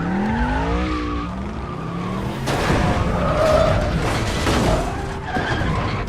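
Film car-chase sound: a car engine revving up, rising in pitch in the first second, then tyres skidding with a sudden loud hit about two and a half seconds in.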